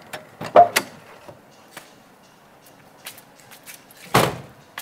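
Car door being handled: a few sharp clicks and knocks under a second in, then a single heavy thud about four seconds in as the door is shut.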